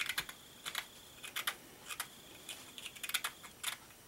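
Small metal tool scraping hardened crayon wax off the edge of a gourd pendant: quick, irregular scraping strokes, sometimes several in a second, with short pauses between.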